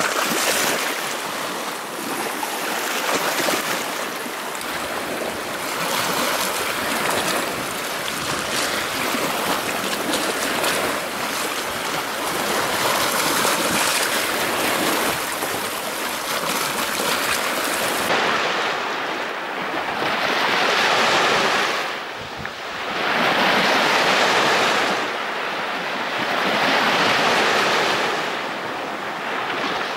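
Lake waves washing up on a sand and pebble shore, a continuous wash of surf. About two-thirds of the way in it turns into separate swells every three seconds or so, as each wave breaks and draws back.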